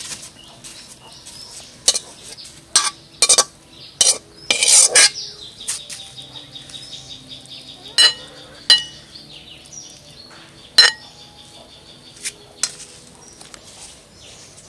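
Metal spatula scraping and clinking against a metal pan and a ceramic plate as cooked greens are served out: a run of sharp clinks with a longer scrape about five seconds in, then a few scattered clinks as the food is spread on the plate.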